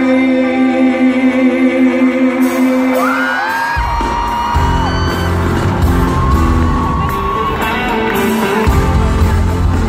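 Live band music heard from the audience in a large hall: a held chord with singing, then bass and drums come in about four seconds in, with whoops from the crowd.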